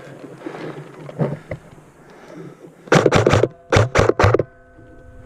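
Airsoft rifle firing two quick strings of shots, about four, a short pause, then three more, sharp and loud.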